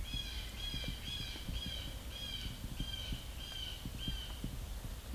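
A bird calling a run of eight short, slightly falling harsh notes, a bit under two a second, that stops about a second before the end.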